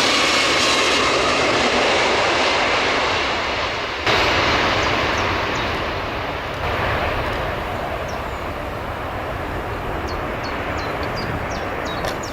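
Boeing 747 jet engines running during a hard landing, a loud steady rush of engine and air noise. The level jumps suddenly about four seconds in. Short faint high chirps come in over the second half.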